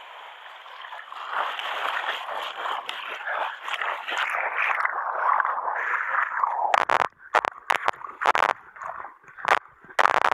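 Mountain stream water rushing and gurgling close to the microphone, fading and going dull about six seconds in. From about seven seconds it gives way to a run of sharp, irregular knocks and splashes in the water of a waterfall plunge pool.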